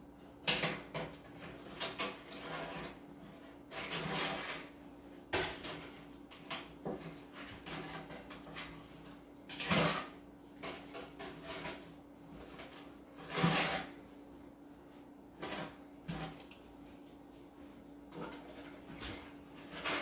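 Wire being wrapped around a thick twisted climbing rope and pulled tight by hand: irregular scraping and rustling, with a few louder scrapes.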